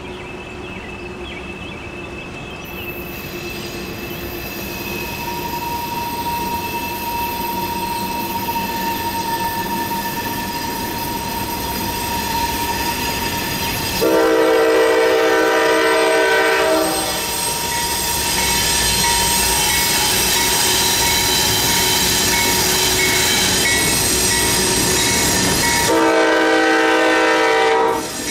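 Freight train wheels squealing and whining as the train works through tight curves, growing louder as it approaches. The locomotive horn sounds twice: a long blast about halfway through and a shorter one near the end.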